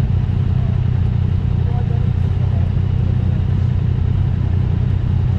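Motorcycle engine idling steadily close to the microphone, an even low-pitched running sound with no revving.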